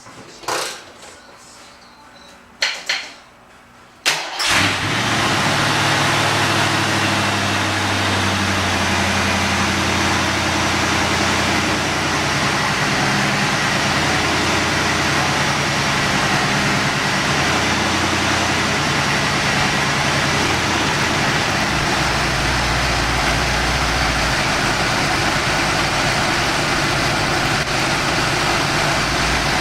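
A few knocks, then about four seconds in the 1986 Mustang GT's 5.0-litre V8 starts at once and settles into a steady idle, its idle speed stepping up and down a few times. The engine is being run to circulate coolant through a newly installed heater core and burp air out of the cooling system.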